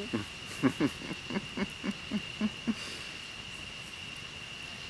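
A person laughing in a quick run of short bursts that dies away about three seconds in. A steady high-pitched whine runs underneath.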